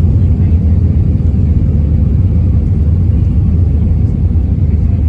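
Steady low rumble inside an Airbus A319's cabin on approach, with flaps extended: engine and rushing-air noise heard from a seat over the wing.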